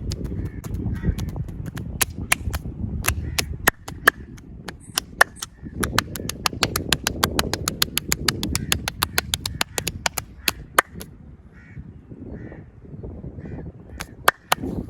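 Fast hand massage: sharp slaps and claps of the massager's hands on bare skin in quick runs, over a rough rubbing noise that comes and goes, with a thinner stretch of taps near the end.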